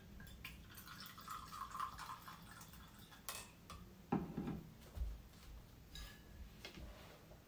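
Wine poured from a glass bottle into a metal goblet, a soft trickle for the first few seconds, then a few knocks and clinks. The loudest knock comes about four seconds in.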